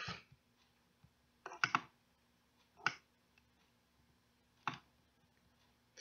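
Four short, separate clicks, spaced a second or more apart, over a faint steady hum.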